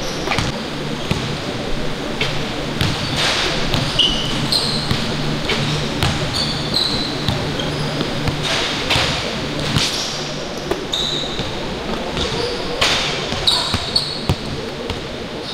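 Basketballs bouncing on a hardwood gym floor at irregular intervals, with short high sneaker squeaks and a steady low hum underneath.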